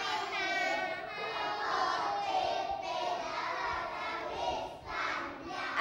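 A class of young children reciting aloud together in unison, many voices overlapping into one chant.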